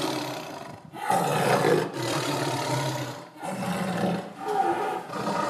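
Tiger roaring, a run of long low roars about a second each with brief breaks between them.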